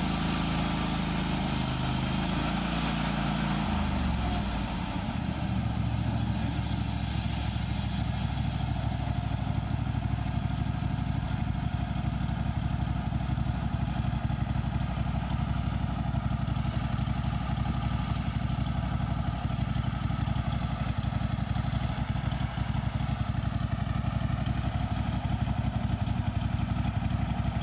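Engine of a Wood-Mizer portable band sawmill running steadily. Its note changes about four to five seconds in.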